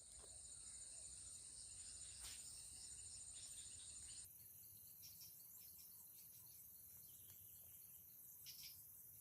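Faint, steady high-pitched insect chorus. About four seconds in it switches abruptly to a higher-pitched drone, and a short faint chirp comes near the end.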